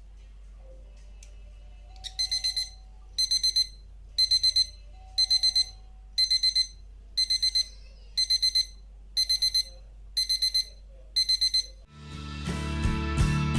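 Electronic buzzer of a homemade fire alarm beeping high and loud, in groups of four quick beeps about once a second, signalling that heat has closed the contacts of the tube-light starter used as its sensor. Guitar music comes in near the end.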